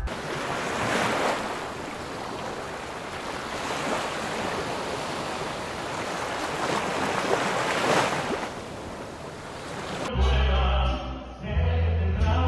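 Ocean surf washing onto a beach, swelling and falling back every few seconds. About ten seconds in it cuts to live stage music with a heavy bass.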